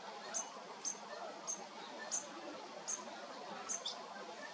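Juvenile goldfinch calling to its parents: a thin, high chirp repeated over and over, about every half second.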